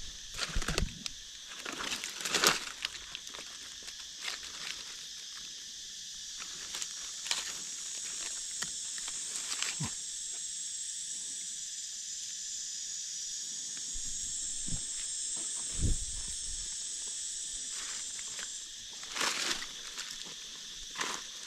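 Steady high-pitched drone of insects in the woodland, with dry leaf litter rustling and crackling now and then as someone moves through it, and a few dull thuds in the second half.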